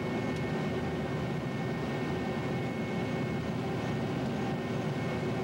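John Deere 9600 combine running steadily while harvesting soybeans, heard from inside the cab. An even drone of engine and threshing machinery with a faint, high, steady whine over it.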